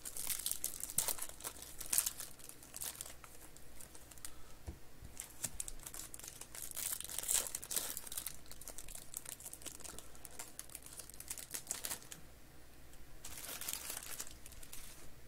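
Foil trading-card pack wrappers crinkling and tearing as they are opened by hand, in irregular bursts of crackle, with the loudest spells near the start, in the middle and near the end.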